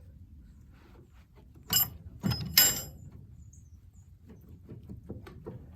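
Two short metallic scraping creaks, about a second apart, as the heavy cylinder head of a Rumely 6A tractor engine is rocked and worked up its studs, followed by a few faint clicks near the end.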